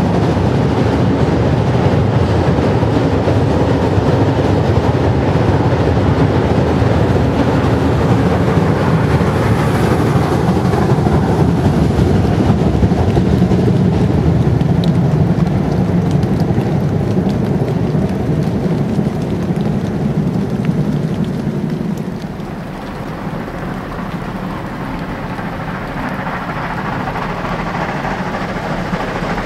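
Class 52.80 steam locomotive with a freight train running by, a steady rumble and hiss that eases off somewhat about three quarters of the way through.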